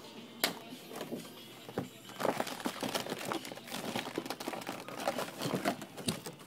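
Plastic packaging crinkling as amp wiring kit parts are handled and unwrapped, with a sharp click about half a second in and a run of dense, irregular crackles from about two seconds in.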